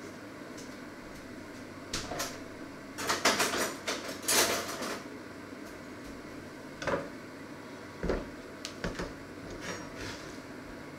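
Kitchen handling noises: a burst of clatter and knocks about two to five seconds in, then a few single knocks as a bread loaf, a yogurt tub and a knife are set down on a wooden cutting board.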